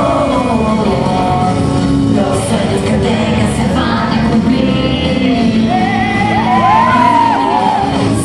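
Live stage performance of a song: singing into microphones over loud music, with long wavering held notes about two thirds of the way through.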